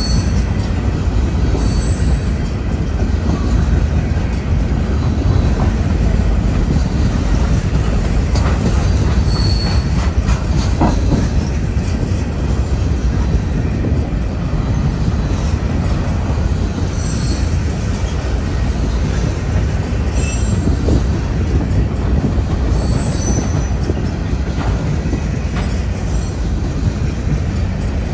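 Covered hopper cars of a freight grain train rolling past close by: a steady heavy rumble of steel wheels on rail, with brief high-pitched wheel squeals every few seconds.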